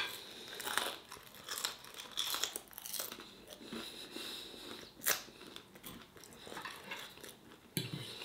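A person chewing a mouthful of crisp chips (fries), with crunchy, crackling chewing noises, and one sharp click about five seconds in.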